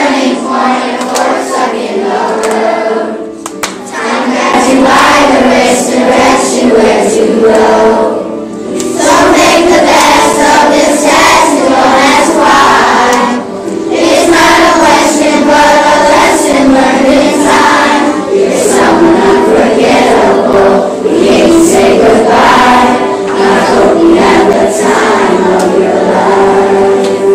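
A group of children singing a song together in chorus, with short breaks between lines.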